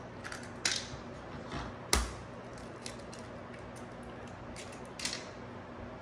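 Eggs being cracked on the rim of a glass bowl: a few sharp taps, the loudest about two seconds in and another about five seconds in, with small clicks of shell and glass between.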